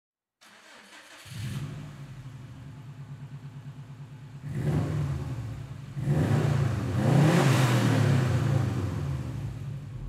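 Subaru Impreza WRX STI's turbocharged flat-four engine starting about a second in and settling into a pulsing idle. It is then revved several times in the second half.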